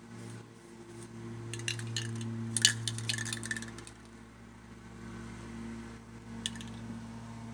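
Light metallic clinks, with a quick run of rattling clicks about two to three and a half seconds in and a single click near the end, over a steady low hum.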